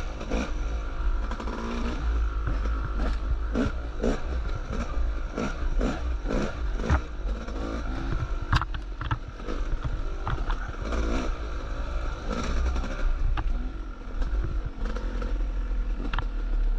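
Yamaha YZ250X two-stroke dirt bike engine revving up and down on a twisty trail, heard from on board, over a steady low rumble. A few sharp clicks sound in the second half.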